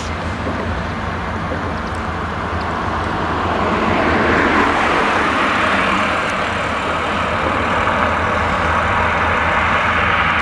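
New Holland CX combine harvester running steadily while threshing maize, with an eight-row Geringhoff corn header, its engine a low steady hum. About four seconds in a louder rushing noise rises and holds as a car passes close by.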